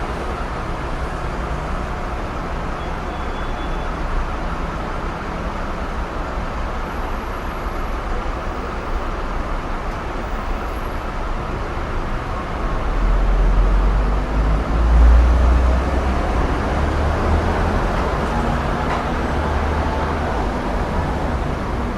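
Road traffic noise: a steady wash of passing vehicles, with a louder, deeper rumble that builds about twelve seconds in, peaks a few seconds later and eases off as a vehicle goes by.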